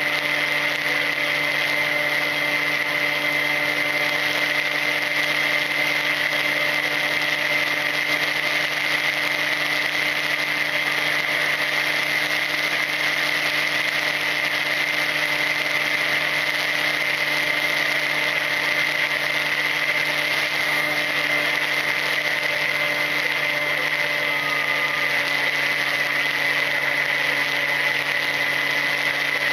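Volantex Ranger EX RC plane's brushless electric motor and propeller running at a steady cruise throttle, heard from on board: a constant high whine over a lower hum and rushing air, with no change in pitch.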